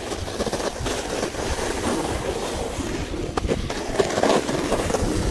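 A sledge sliding down a packed-snow run: a steady scraping rumble from the runners on the snow, with a few small knocks.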